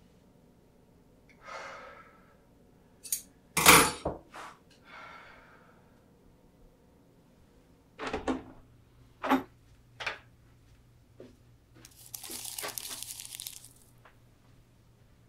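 A series of separate handling sounds: sharp knocks and clicks, the loudest a heavy thunk about four seconds in and another pair about eight seconds in. About two seconds of rustling follow near the end.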